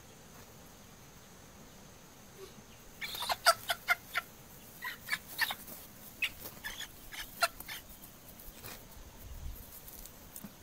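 A hen squawking in a quick run of short, sharp cries starting about three seconds in, its alarm at being grappled by a puppy.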